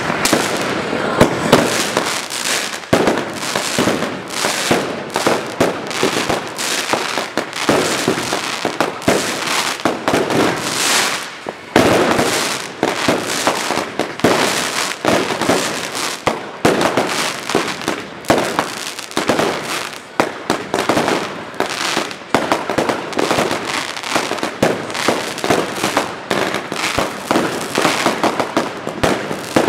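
Aerial fireworks going off without pause: a dense run of overlapping bangs and crackling bursts overhead.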